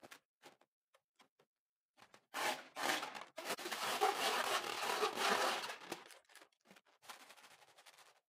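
Slime-filled rubber balloon being squeezed and rubbed by hand: a few light scattered clicks, then about two seconds in a few seconds of dense crackling rubbing and squishing, softening to a quieter rub near the end.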